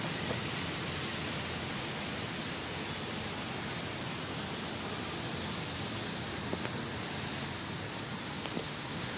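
Steady, even hiss of background noise.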